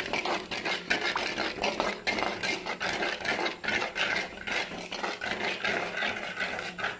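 A wooden-handled spoon stirring a thin sauce in an unglazed clay pot, scraping and rubbing against the clay in rapid, irregular strokes.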